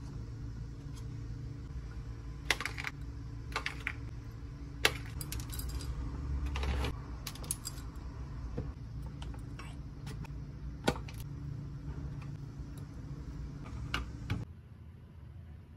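Sharp clinks and taps of a metal spoon against a glass mug as yogurt and granola are spooned in, scattered irregularly, with a short rustling patch in the middle. A steady low hum runs underneath and cuts off suddenly near the end.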